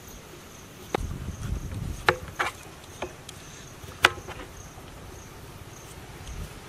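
A kitchen knife chopping through raw potatoes onto a cutting board: about five sharp knocks at uneven gaps, the loudest about four seconds in. Crickets chirp steadily in the background.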